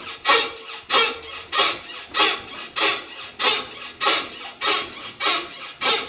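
Floating rubber bushing (silent block) in the suspension knuckle of a Toyota Mark II JZX110, squeaking as the suspension works. It squeals in a steady rhythm, about one squeak every 0.6 seconds. This is the typical squeak of a dry floating bushing, which silicone grease quiets only until the first rain.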